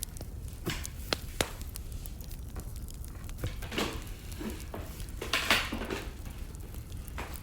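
Burning firewood crackling, with sharp pops about a second in and longer bursts of crackle in the middle and near the end, over a low steady rumble.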